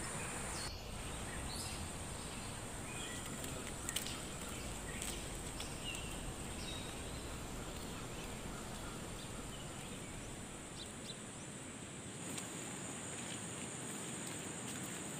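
Countryside ambience: a steady high-pitched insect drone, with scattered short bird chirps in the first few seconds over a low, even background hiss.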